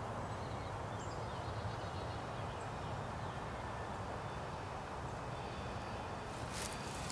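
Steady outdoor background noise with a low hum, faint scattered chirps, and one brief soft hiss near the end.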